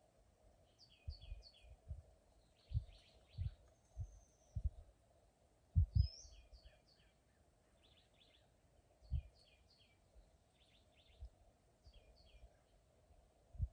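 Small songbirds singing, a run of short repeated phrases of a few quick high chirps each, over a faint steady hum. Irregular short low thumps come and go, the loudest about six seconds in.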